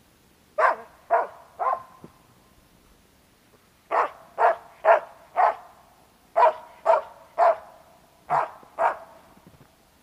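Hunting dog barking up at a squirrel hidden in the trees, giving its location: about a dozen short, sharp barks in quick runs of two to four.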